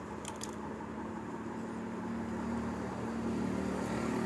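Background motor-vehicle engine running, a steady low hum that grows a little louder toward the end. A few short light clicks come just after the start.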